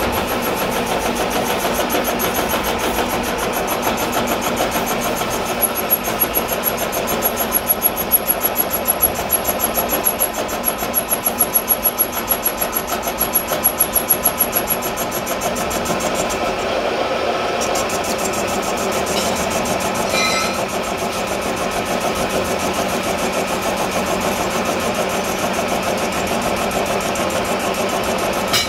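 Metal lathe running while a cutting tool faces a rusty iron workpiece, a steady machine noise of the turning spindle and the tool cutting steel. A thin, high whine comes in about six seconds in and drops out about halfway through.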